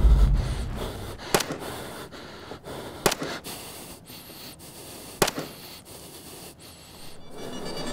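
A deep boom fading out, then three sharp cracks spaced a second and a half to two seconds apart, over a man's hard, panting breath.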